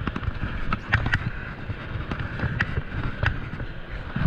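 Water sloshing around a small boat, with wind buffeting the microphone and a few scattered sharp clicks and splashes.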